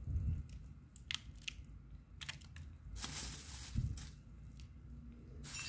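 Crushed candy crumbs being crumbled between fingers and dropped onto soft chocolate paste in a plastic tray: a few faint scattered clicks and small crunches, with a dull knock a little before four seconds in.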